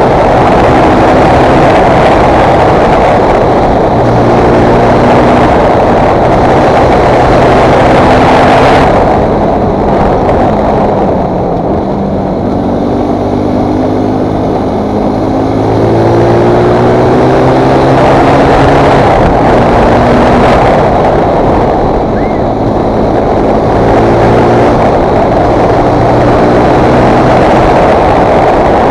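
Fantic Performance 125 motard's single-cylinder four-stroke engine under way, its pitch climbing and then dropping back again and again as it shifts through the gears. Strong wind noise on the microphone. In the middle the engine eases off for several seconds, then pulls up through the gears again.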